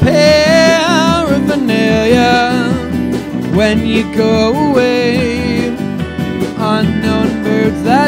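Live band music: a man sings a melody in several phrases, his voice sliding between notes, over steadily played guitar chords.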